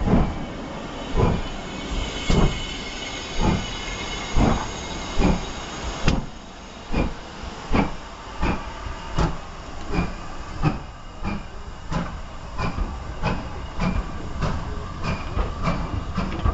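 Steam locomotive pulling away with its train of coaches, exhaust chuffs quickening from about one a second to about two a second, with a hiss of steam over the first few seconds.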